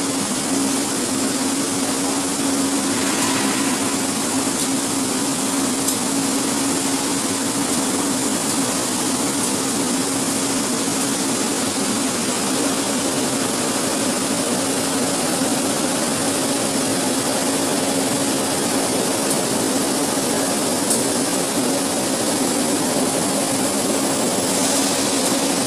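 Steady noise of a billet continuous casting machine at work: an even hiss over a constant low hum.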